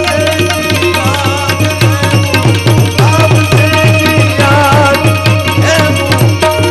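Instrumental Indian folk music: tabla playing a brisk beat with gliding bass strokes over a steady low drone, with harmonium and a bulbul tarang (Indian banjo) carrying a wavering melody.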